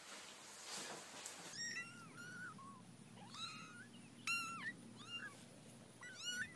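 Faint scuffing of a mop pad sliding on a wooden floor for about the first second and a half. Then a young kitten mews over and over, about ten short, high calls that rise and fall in pitch.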